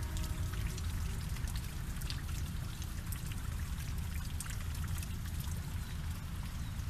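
Light rain or drips pattering in many small, irregular ticks over a steady low rumble.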